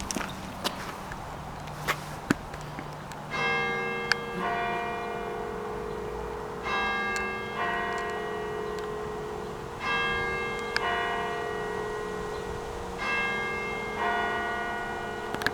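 Church tower clock chiming "ting tang" on two bells: four pairs of strokes, a higher bell then a lower one about a second later, the pairs about three seconds apart, each stroke ringing on. This is the two-bell ting-tang chime that comes before the hour is struck. Two sharp clicks come shortly before the first pair.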